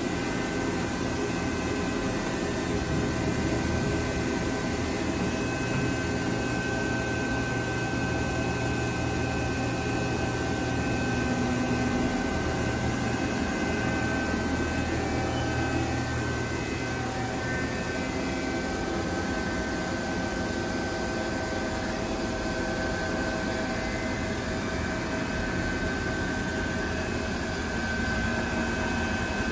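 Steady industrial machinery hum: a constant low drone with several thin, steady whining tones above it. The low drone eases slightly about two-thirds of the way through.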